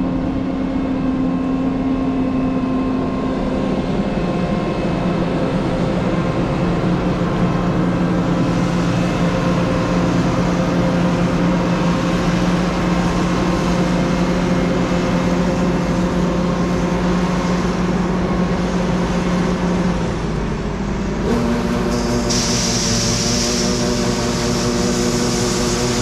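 Engine machinery running steadily, a constant hum made of several held tones. About 21 seconds in the tones change abruptly and a steady hiss joins.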